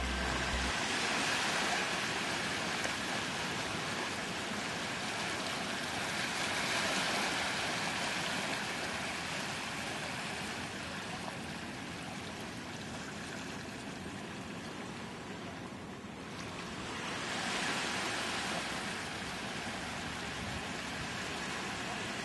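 Small waves washing onto a sandy beach: a steady hiss of surf that swells and fades about three times.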